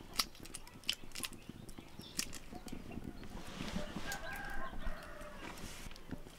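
Chickens clucking, with several sharp clicks scattered through.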